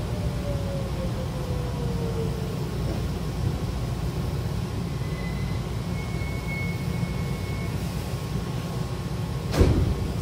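Hankyu train car slowing to a stop: a steady low rumble, with a motor whine falling in pitch over the first two seconds. About nine and a half seconds in, the car's sliding doors open with a sudden loud rush and thump.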